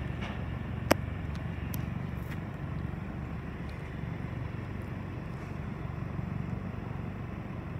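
Distant Cessna 208B Caravan's PT6A turboprop running as the plane taxis, heard as a steady low rumble. A single sharp click comes about a second in.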